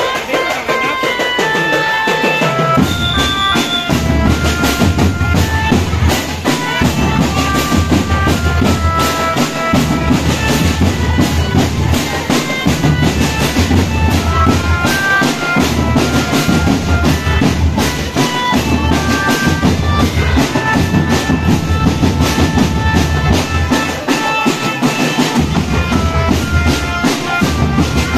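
Marching drum band playing: rapid snare drumming and heavy bass-drum beats under a melody of held notes. The bass drums come in about three seconds in.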